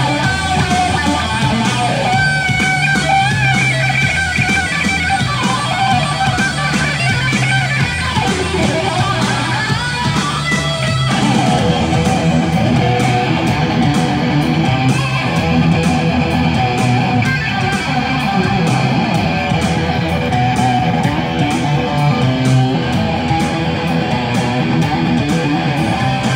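Electric guitar played live on stage and heard loud: an instrumental passage of sustained melodic lines over low notes. About 11 seconds in the part changes, and a sharper, steadily pulsing rhythm takes over.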